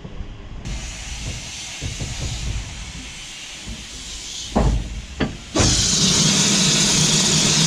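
Steam locomotive letting off steam: a steady hiss from about a second in, two short thumps a little past halfway, then a much louder steady hiss with a low hum under it.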